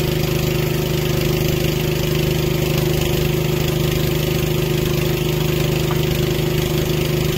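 Small engine of a towable boom lift running at a steady speed, an even, unchanging hum.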